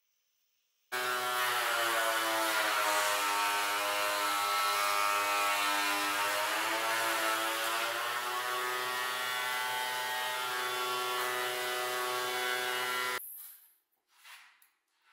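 DeWalt benchtop thickness planer running as a board feeds through it: a steady, high motor whine whose pitch sags slightly under the load and then recovers. It starts abruptly about a second in and stops abruptly near the end.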